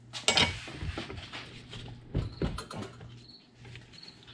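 Metal hand tools (a combination wrench and a ratchet) clinking and clicking against a Nissan VG30DE oil pump as its 24 mm pressure-relief valve plug is worked loose. The sound is a run of irregular short metallic clicks and knocks, loudest just after the start and again about two seconds in.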